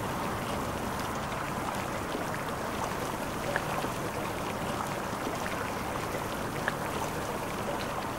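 Steady running-water sound, like a stream or trickle, with faint drips or ticks scattered through it.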